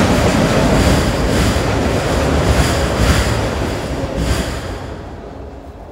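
Autorack freight cars rolling across a tall steel truss railroad bridge: a loud, steady rumble with regular wheel clatter. It fades away after about four and a half seconds as the end of the train passes.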